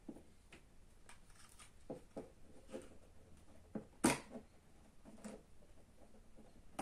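Small scattered clicks and scrapes of a prying tool working at the iPod Video's case, with one sharper click about four seconds in.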